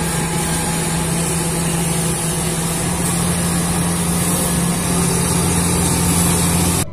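Crawler bulldozer's diesel engine running at a steady pitch with a constant low hum, cutting off suddenly near the end.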